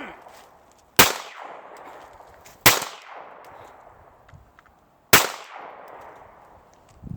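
Three handgun shots about a second, then two seconds, apart, each with an echo that trails off. None sets off the Tannerite target: the shots miss.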